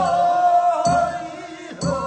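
Korean funeral bier song (sangyeo sori) of Gyeongsang province: a singing voice holds one long note for most of the first second, over a beat struck about once a second.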